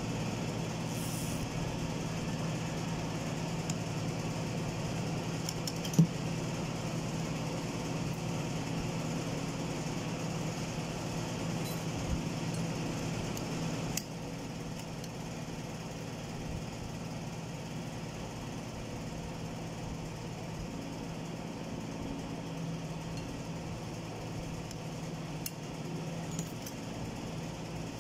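A steady low mechanical hum that drops a little in level about halfway through, with one sharp metallic clink about six seconds in and a few faint light clicks from metal transmission parts being handled.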